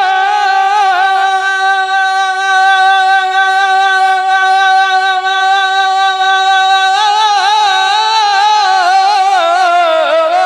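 Man's voice singing a naat melody, holding one long steady note for about seven seconds, then breaking into a wavering, ornamented run.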